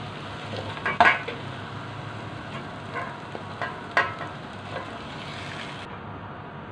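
Wooden spatula scraping and knocking against a metal pot as scrambled egg is scooped out. The sharpest knocks come about a second in and about four seconds in, with lighter scrapes between, over a faint steady frying sizzle.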